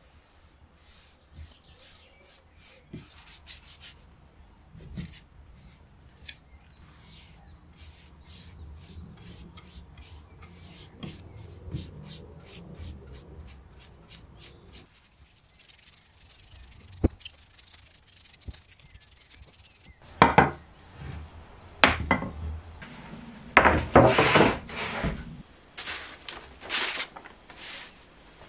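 A bristle brush rubbing a reddish finish onto a wooden axe handle: soft strokes with small clicks. About twenty seconds in come a few much louder scrapes and knocks against the wood.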